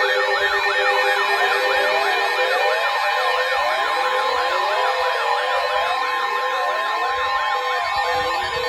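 Several electronic alert sirens sounding at once: fast repeating yelps over slower rising wails, with a steady alarm tone held underneath, typical of an emergency-alert alarm.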